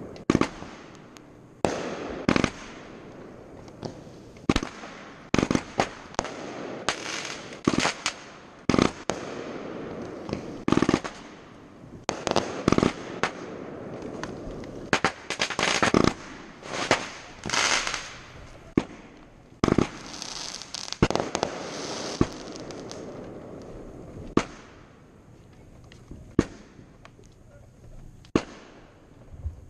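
Fireworks display: aerial shells bursting in quick succession with booms and crackle, densest in the middle and thinning to scattered bangs near the end.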